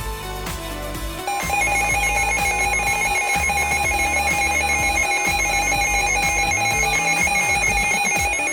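A pulsing electronic emergency alert tone, a shrill beeping alarm of the kind sounded in EAS and weather radio tests, starting about a second in and holding steady, with background music underneath.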